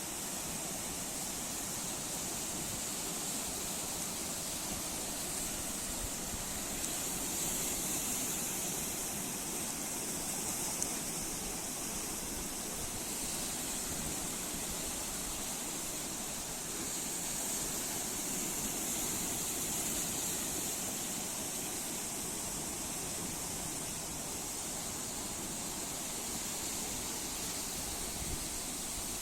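Sea waves breaking and washing on the shore, a steady rush that swells twice and eases again.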